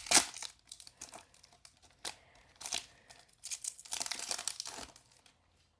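Crinkling and rustling of trading-card pack wrappers and cards being handled, in irregular sharp crackles that come in short bunches and fade out near the end.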